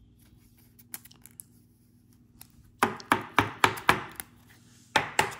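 Trading cards knocked against a tabletop: a few faint clicks, then a quick run of about six sharp taps, roughly four a second, and a second run starting near the end.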